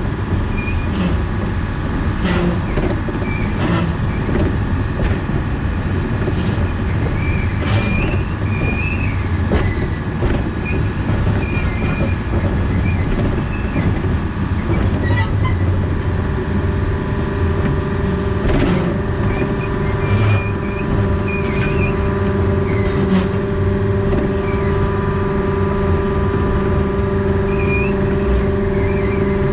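Diesel engine of a diesel-hydraulic narrow-gauge locomotive running steadily under way. Wheel clicks over the rail joints come every second or two, with short high wheel squeals now and then.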